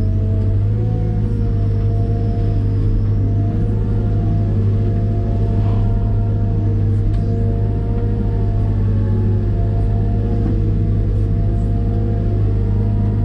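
Caterpillar M313D wheeled excavator's diesel engine running steadily with a deep hum, and a hydraulic whine that wavers a little in pitch as the machine works.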